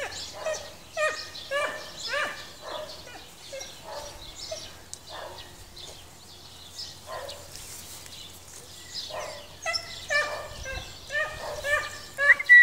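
A small dog barking repeatedly in short, high yaps, each falling in pitch, two or three a second. The barking turns fainter and sparser in the middle and picks up again near the end.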